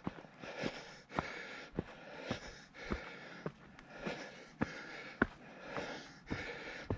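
Hiker's footsteps on a rocky forest trail, about two steps a second, with the hiker's breathing heard between them on the climb.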